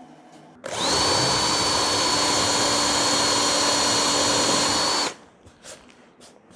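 Cordless drill boring a small hole into a wooden board, running at one steady speed with a high whine. It starts under a second in and stops abruptly about four seconds later.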